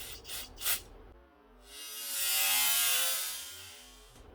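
Aerosol can of carburetor cleaner spraying into a carburetor emulsion tube: a few short spritzes, then one long hiss of about three seconds that swells and fades.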